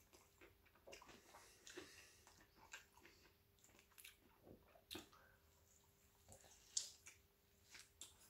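Faint chewing and biting of a burger: irregular soft wet mouth sounds and small clicks, with one sharper click about seven seconds in.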